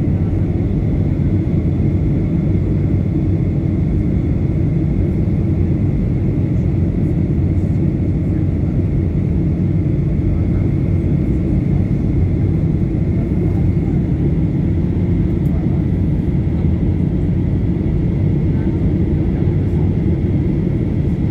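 Steady cabin noise of a Boeing 737-800 in flight, heard from a window seat: a constant low rumble of the CFM56 engines and airflow over the fuselage, with a faint steady high whine above it.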